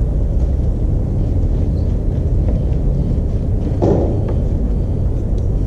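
Steady low rumble of background noise, with one short louder sound about four seconds in.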